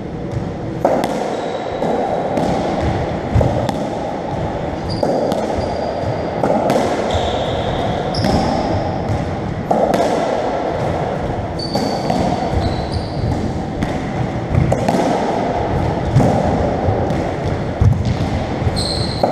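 Racketball rally: the hollow rubber ball smacking off rackets, the walls and the floor about once every second or so, each hit ringing in the enclosed court. Short high squeaks of trainers on the wooden floor come in between the hits.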